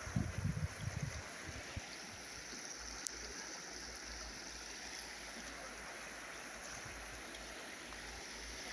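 River water flowing, a steady rushing. A few irregular low rumbles in the first second and one short click about three seconds in.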